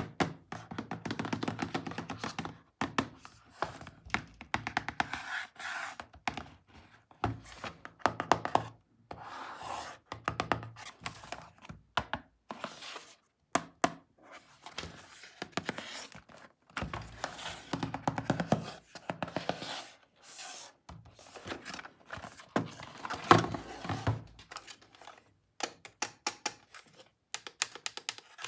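Plastic toys and packaging being handled: irregular clicks, knocks, thunks and rubbing, with short pauses between.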